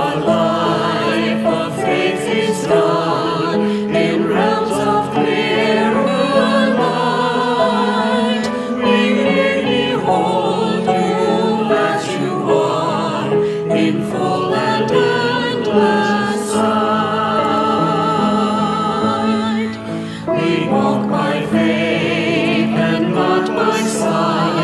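Small mixed choir of women's and men's voices singing a hymn-style anthem in sustained, vibrato-laden lines, accompanied by piano.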